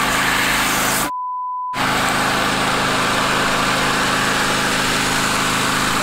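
Petrol generator and electric surface water pump running steadily, with water spraying from a leaking hose fitting on the pump. About a second in, a short single-tone censor bleep replaces all other sound for about half a second.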